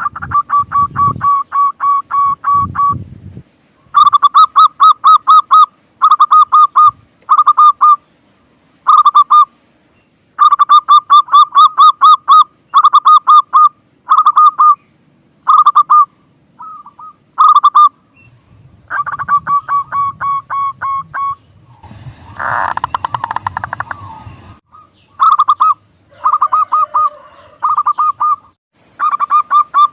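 Zebra dove (perkutut) calling: short phrases of fast, evenly repeated staccato coo notes, one after another with brief pauses. A rougher noisy burst with a low rumble comes about two-thirds of the way through.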